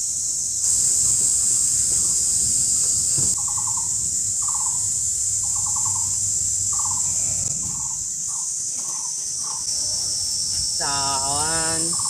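Steady, high-pitched insect chorus, with a bird calling a series of short trilled notes, roughly one a second, through the middle. A person's drawn-out voice comes in near the end.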